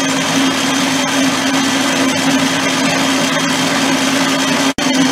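Electric stand mixer running at high speed, beating sugar and oil in a stainless steel bowl: a steady motor whine over a constant hum. It breaks off for an instant near the end, then runs on.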